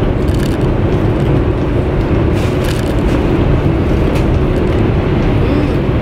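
Steady low rumble of a high-speed train cabin in motion, with a few light crackles of a plastic food container being handled.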